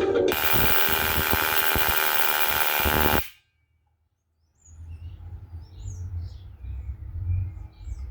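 Loud, even hiss like static over a low rumble for about three seconds, cutting off suddenly into a second of silence. Then a faint low outdoor rumble with scattered high bird chirps.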